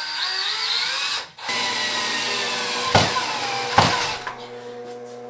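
Cordless drill driving drywall screws into wood studs: the motor whine climbs in pitch as it spins up, stops briefly about a second in, then runs again, with two sharp clicks near three and four seconds in before it winds down.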